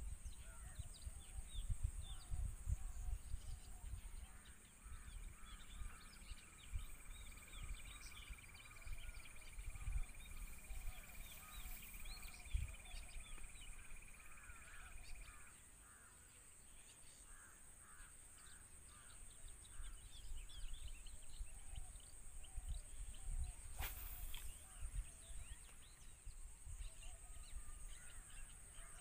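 Birds chirping and calling in short notes over a steady high hiss, with wind rumbling on the microphone during the first few seconds and one sharp click near the end.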